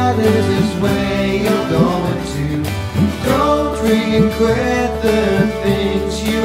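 A man singing to his own strummed acoustic guitar, an upbeat song with a steady strum.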